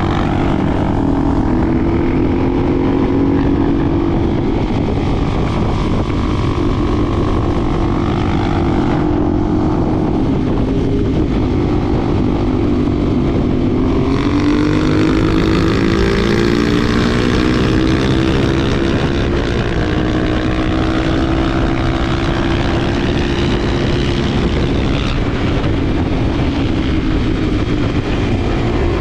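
Honda XR250 Tornado's single-cylinder four-stroke engine running under way, its pitch rising and falling with throttle and gear changes, with a clear climb about halfway through.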